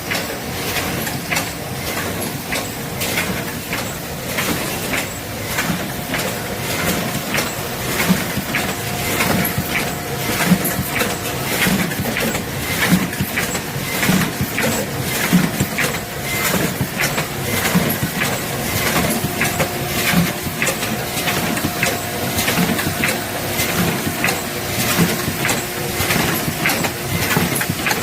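Automatic sheet feeder on a Thomson platen die-cutting machine running at production speed, feeding corrugated cardboard sheets: a steady run of mechanical clicks and knocks over a faint steady whine.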